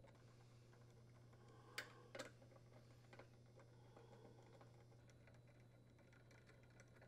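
Near silence with faint clicks of a hand screwdriver unthreading screws from a dryer door's metal hinge plate; two sharper clicks come about two seconds in, over a low steady hum.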